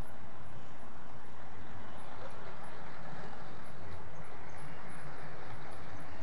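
00 gauge model trains running on the layout: a steady rumble of small electric motors and wheels on track, with faint scattered clicks.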